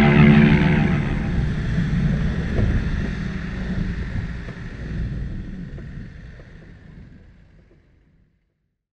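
A 4x4 driving along a grassy dirt track: engine and wind noise that fades steadily to silence, with the tail of background music in the first second.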